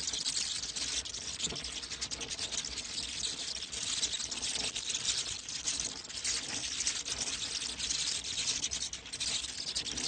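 Bats chittering: a dense, unbroken stream of tiny high clicks and squeaks that wavers in loudness but never stops.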